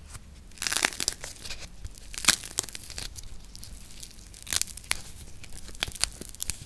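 A teal-coated plasticine unicorn figure cracking and crackling as hands squeeze and tear it open, its shiny outer layer breaking over soft purple plasticine. Sharp crackles come in irregular clusters, the loudest snap just after two seconds in.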